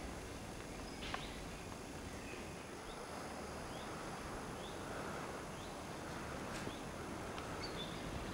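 A small bird chirping over and over, short high chirps about once a second, against a steady outdoor background hiss, with a couple of sharp clicks.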